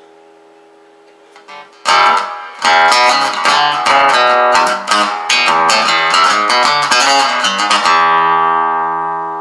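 Madera acoustic guitar fitted with a pickup, played loud through a Line 6 amplifier: a chord fading, then from about two seconds in a run of strummed chords and picked notes, ending on a chord that rings out and slowly fades.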